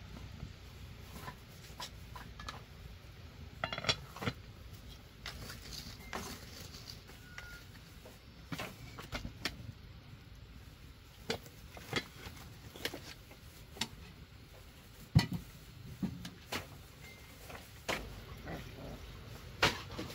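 Irregular light knocks and clicks of objects being handled, with a sharper knock about fifteen seconds in.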